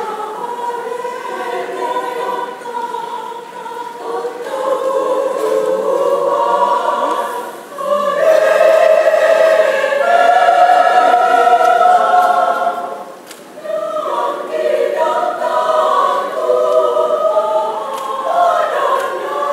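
Women's church choir singing in several-part harmony with long held notes. It swells to its loudest about eight seconds in, drops briefly for a breath around thirteen seconds, then carries on.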